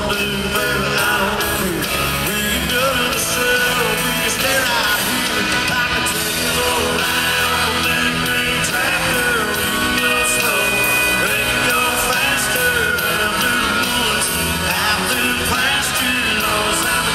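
Live country music: a male singer singing and playing acoustic guitar, amplified in a large arena.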